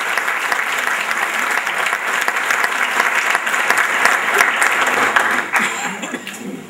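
Audience applauding at the end of a lecture, the clapping thinning and dying away near the end.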